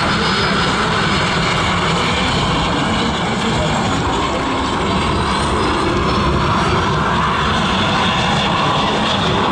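Northrop F-5E/F Tiger II jet fighter's twin General Electric J85 turbojets running: a loud, steady rushing noise with faint high whistling tones.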